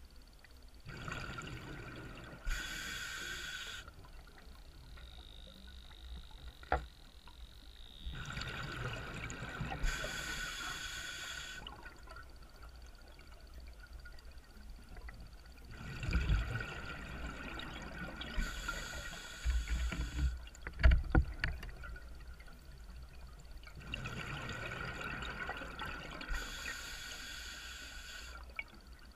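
Scuba diver breathing underwater through a regulator: four slow breaths, each a rush of hiss and bubbling lasting a few seconds, roughly eight seconds apart.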